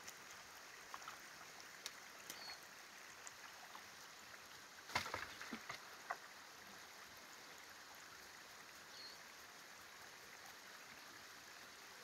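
Faint steady hiss with footsteps crunching on beaver-dam sticks, then a cluster of knocks and splashing about five seconds in as an ABS-pipe Tannerite charge is pushed down into a hole in the dam at the water's edge.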